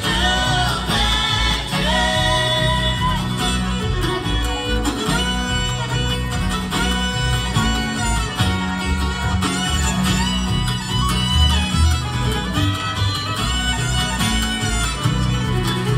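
Live bluegrass band playing a fast train song on acoustic guitar, banjo, fiddle and upright bass, with the fiddle carrying a lead line over a steady bass pulse.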